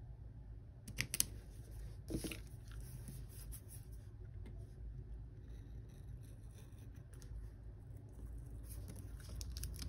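Quiet paper handling on a planner page: two sharp clicks about a second in, a short scratch just after two seconds, then a pen tip scratching and rubbing faintly over the paper.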